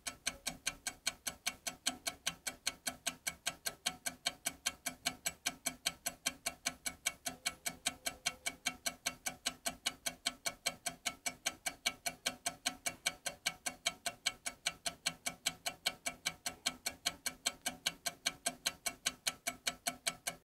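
Steady, fast clock-like ticking, about four to five ticks a second, each tick with a low note in it. It cuts off suddenly at the end.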